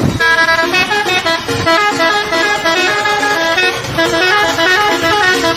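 Multi-tone telolet horn playing a quick melody, its notes stepping to a new pitch several times a second.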